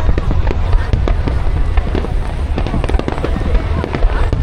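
Fireworks display: a dense run of cracks and bangs in quick succession over a continuous low rumble.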